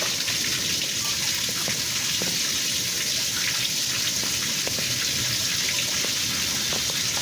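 Steady rush of water running into a partly clogged drain as it is being cleared, with small scattered splashes and drips.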